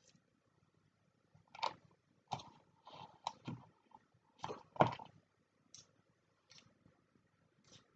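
A spoon scraping and knocking in a bowl in irregular strokes, loudest a little under five seconds in. It is working dairy-free margarine into icing sugar and cacao powder.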